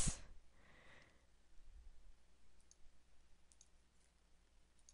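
A few faint, scattered computer mouse clicks over quiet room tone.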